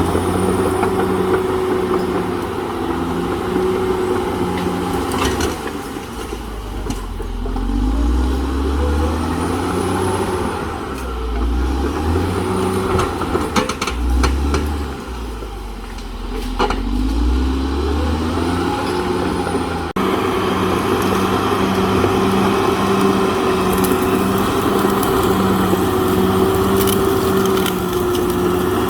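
CAT D6R XL bulldozer's diesel engine working under load, its pitch repeatedly dropping and rising again as the machine pushes, with scattered sharp cracks and knocks in the middle. About two-thirds of the way in, the sound changes abruptly to the engine running steadily with a constant whine.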